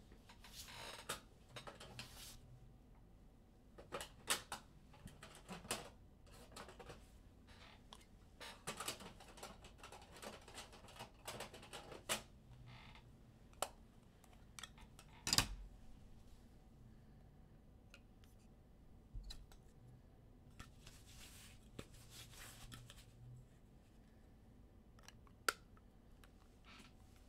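Faint handling of trading cards and plastic card holders: scattered clicks and short crinkly rustles, with one sharp click, the loudest, about fifteen seconds in.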